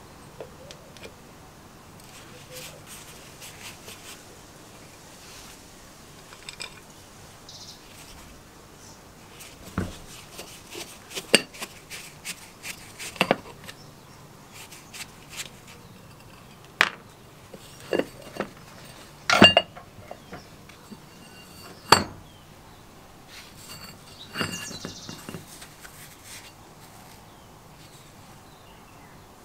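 A flat-bladed tool prying and tapping at the metal end cover of a vintage Sprayit diaphragm airbrush compressor's motor housing, making irregular sharp metallic clinks and knocks with the loudest about two-thirds of the way in. Near the end there is a brief scrape as the cover works loose.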